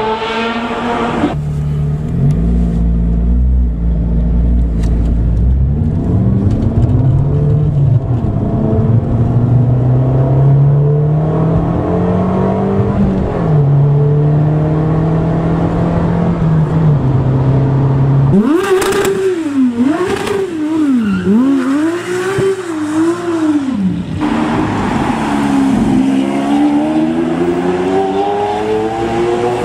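Supercar engines accelerating hard, the engine note climbing and dropping back at each upshift. About two-thirds through come several quick revs rising and falling, then another rising rev near the end.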